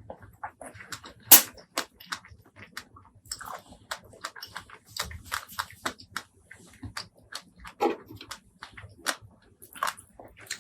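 Close-miked eating sounds: irregular chewing and crunching with wet mouth clicks and smacks, with one loud crunch about a second and a half in.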